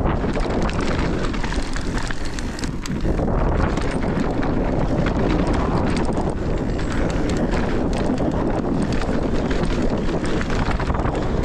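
Mountain bike rolling fast down a dirt trail, its tyres running over the ground with a steady stream of small rattles and clicks from the bike, under steady wind noise on the action camera's microphone.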